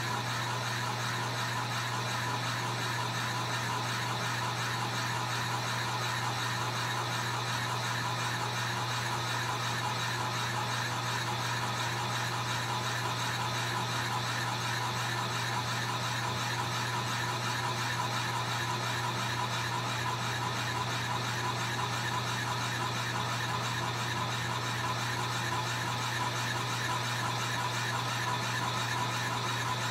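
Drill press running steadily with a large boring bit cutting into a log, a constant motor hum.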